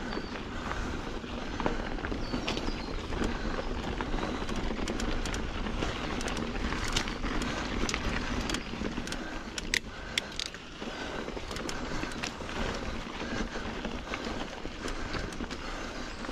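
Mountain bike (Norco Sight A2) riding over rocky dirt singletrack: steady tyre noise on dirt and stones with scattered sharp clicks and knocks from rocks and the bike, thickest in the middle of the stretch.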